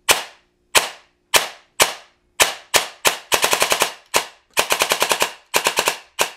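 Airsoft CAR-15 electric rifle with a Warhead brushless motor and high-speed DSG gearbox, fired in semi-auto with quick trigger pulls: sharp single shots about half a second apart, then fast strings of shots from rapid tapping. Each shot cycles and stops at once, the quick trigger response of a brushless motor with precocking and active braking off.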